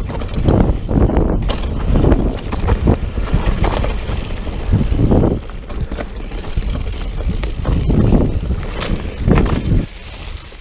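A mountain bike rolling fast down a rooty dirt trail: the tyres rumble over the ground and the bike rattles and knocks over bumps, with a constant low wind rumble on the camera microphone. It gets quieter near the end.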